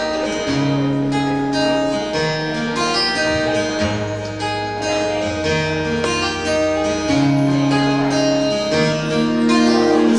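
Live band playing a song's instrumental intro: quick plucked guitar notes over held bass notes that change every second or so.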